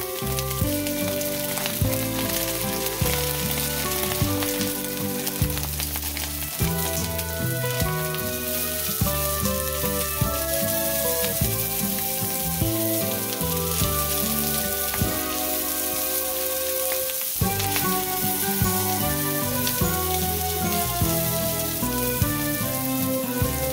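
Diced onion and scrambled egg sizzling steadily as they fry in a hot stainless steel pan, stirred with a silicone spatula. Background music with a steady beat plays under the sizzle.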